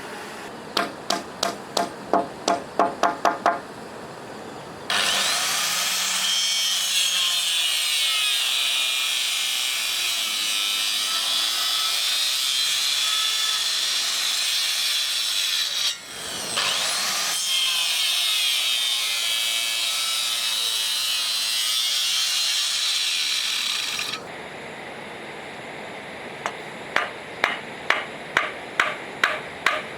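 Hammer driving a nail into wood, the strikes quickening, then a power saw cutting wood at length; the saw stops briefly about halfway through and spins back up. Steady hammering on wood resumes near the end.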